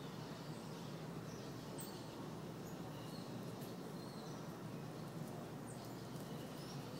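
Scattered short, high chirps and whistles from small animals, over a steady low background noise.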